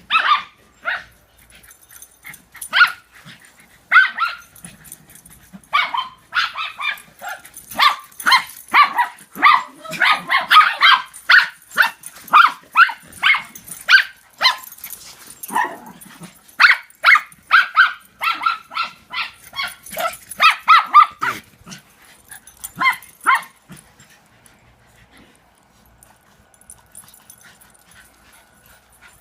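Dogs barking in play: short, sharp barks, a few spaced out at first, then rapid strings of them in quick succession, dying away after about 23 seconds.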